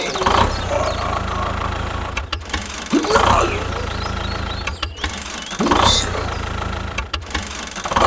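Steady low hum of a small motor running, broken by short dropouts, with a brief whoosh about every two and a half seconds.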